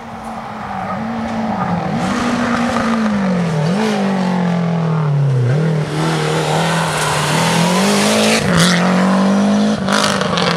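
Rally car engine approaching under load, its pitch dropping as it slows for a hairpin, then climbing again in steps as it accelerates up through the gears. A couple of sharp cracks from the car come near the end.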